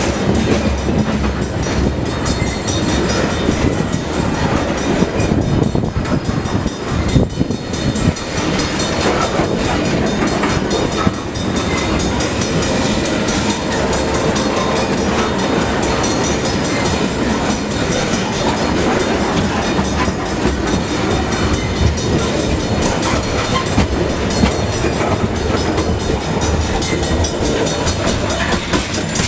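Train passing on the rails: a steady, loud rumble of the cars with a constant clatter of wheels over the track.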